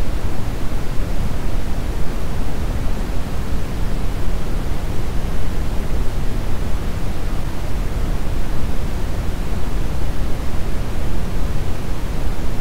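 Steady brown noise: a constant, even hiss weighted heavily toward the low end, without changes or events.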